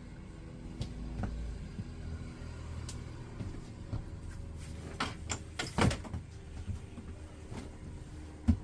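Scattered knocks and clicks, a few louder ones about five to six seconds in, over a low steady hum.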